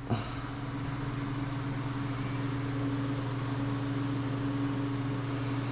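Steady mechanical hum with two constant low tones over a noisy background, unchanging throughout.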